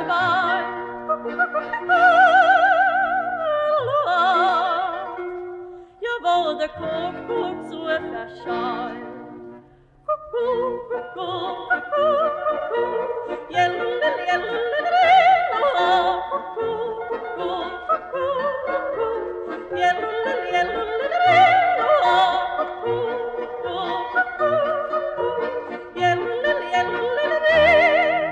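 A woman yodelling solo in a Tyrolean yodel song (Jodellied), a high voice with a wide vibrato over a lower accompaniment. It pauses briefly about six and ten seconds in.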